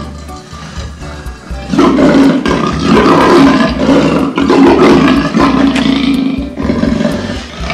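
Male lion roaring: a loud bout starting about two seconds in and lasting about five seconds, over background music.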